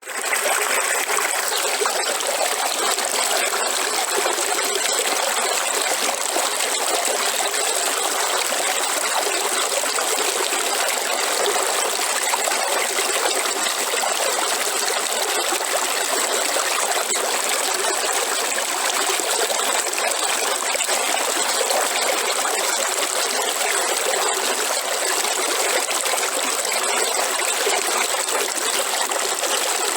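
A river running steadily, water rushing and trickling over rocks, fading in at the very start.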